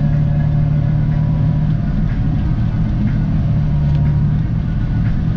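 Tractor engine running steadily with a low hum, heard from inside the cab while the tractor tows a forage harvester. Its pitch eases off briefly about two seconds in and again near the end.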